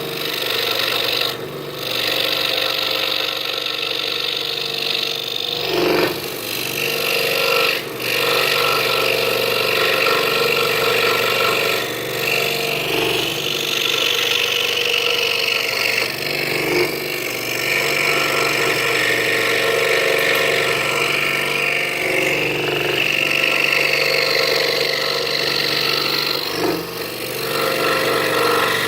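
Scroll saw running steadily, its Pegas blade cutting through half-inch pine, with a few short dips in the sound.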